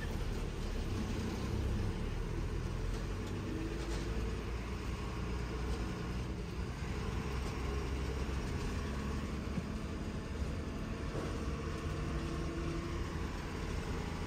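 KSRTC Minnal bus under way on the road, a steady rumble of engine and tyre noise.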